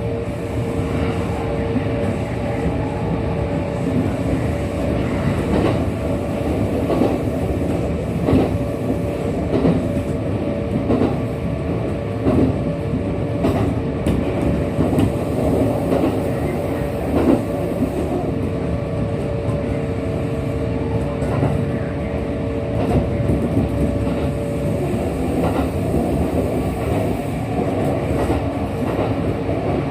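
Kintetsu 1233 series electric train's running sound at speed, heard from inside the car: a steady rumble with a held whining tone that fades out near the end, and wheels knocking over rail joints. This is the 1233 series set that the recordist singles out for an abnormal running noise.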